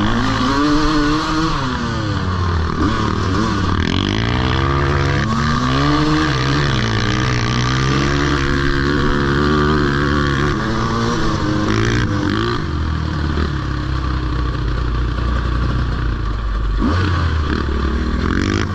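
Dirt bike engine heard from on board, revs rising and falling with the throttle every second or two while riding a gravel trail.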